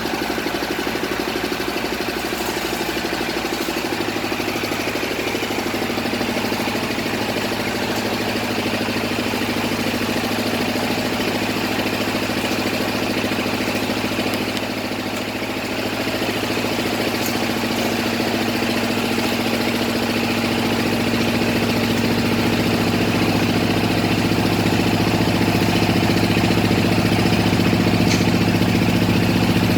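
Engine of a bored-pile drilling rig running steadily. About four seconds in its note changes, then its pitch creeps slowly upward, and it gets a little louder in the second half as the engine speeds up.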